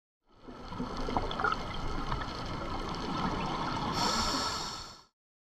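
Underwater sound heard through a camera housing: a muffled wash of water with crackling and bubbling from scuba divers' exhaled bubbles. It starts and stops abruptly, and grows hissier after about four seconds.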